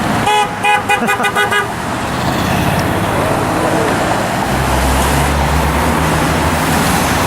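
A passing car's horn tapped in a quick run of about eight short honks, sounded in answer to the protesters' call to honk. Steady freeway traffic noise runs underneath, with a heavier vehicle rumbling past in the second half.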